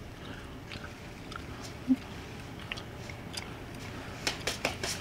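Snow crunching: one faint crunch about two seconds in, then a quick run of about five sharp crunches near the end, over low background noise.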